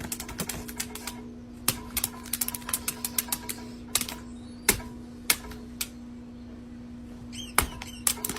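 Irregular sharp clicks and taps, some single and some in quick runs of several a second, over a steady low hum.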